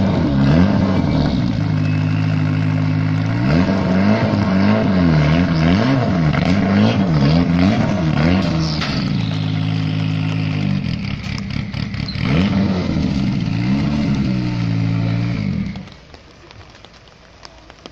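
Mitsubishi Lancer Evo VI Group A rally car's turbocharged 2.0-litre four-cylinder running at a standstill, with two runs of quick, repeated throttle blips between steadier idling. The engine stops abruptly near the end.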